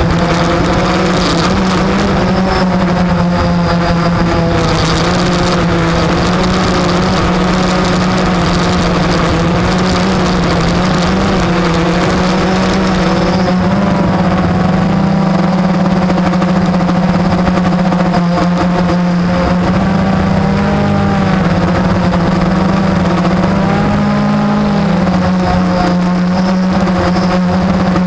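Blade 350 QX quadcopter's brushless motors and propellers running with a steady hum, its higher tones wavering up and down as the motor speeds change.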